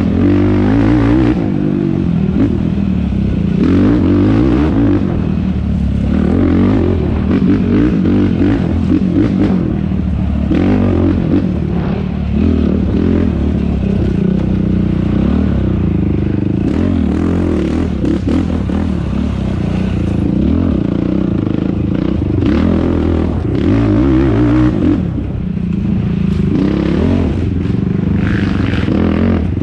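Yamaha YFZ450R quad's single-cylinder four-stroke engine revving up and down continually under racing load, rising and falling in pitch through the throttle and gear changes. Occasional knocks and clatter come from the machine over rough ground.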